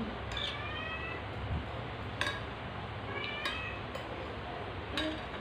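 A cat meowing twice in drawn-out, high-pitched calls, with a few sharp clinks of spoons on plates.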